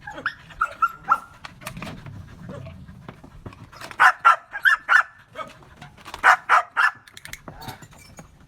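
Belgian Malinois barking, as it is trained to bark on cue: a few small yips in the first second, then a run of four sharp, high barks about four seconds in and three more about six seconds in.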